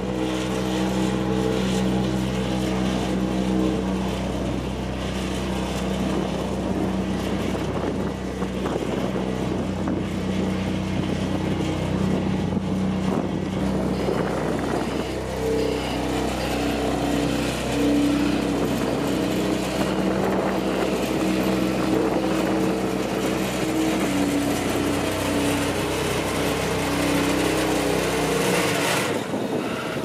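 Cat CB10 tandem asphalt roller's diesel engine running steadily as the roller works fresh asphalt. A second machine's engine tone joins about halfway through, and the deep part of the hum drops away just before the end.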